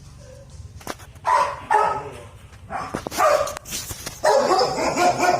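A dog barking in three loud bouts, with a couple of sharp clicks just before the first.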